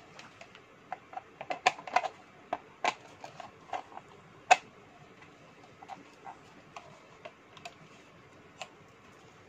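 Irregular clicks and knocks of hard plastic parts of an LED ring light and its desktop stand being handled and fitted together. They come thickest in the first three seconds, with one sharp knock about four and a half seconds in, then scattered lighter clicks.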